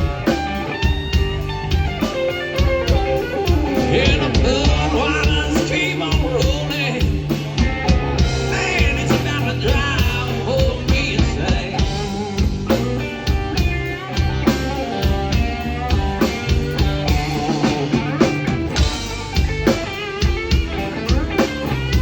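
Blues-rock band music: electric guitar lines over a steady bass and drum beat.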